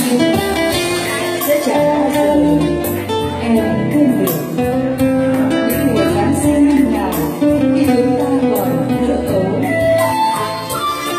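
Live music: women singing a Vietnamese ballad into microphones, accompanied by acoustic guitar and keyboard.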